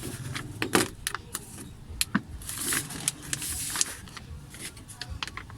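Metal and plastic clicks, clinks and knocks from the door lock actuator and latch parts being worked loose inside a Suzuki Ertiga door, with one sharp knock just under a second in and a scraping rub around the middle.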